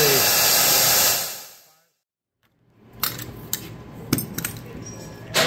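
Magnetic drill press motor running steadily, driving a facing cutter, then fading away into about a second of silence. After that come light metallic clinks and knocks of tools being handled on the steel fixture, the loudest near the end.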